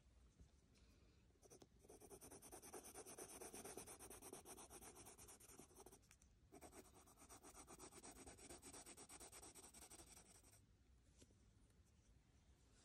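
Faint scratching of a coloured pencil shading on paper in quick back-and-forth strokes, in two stretches with a short pause about six seconds in.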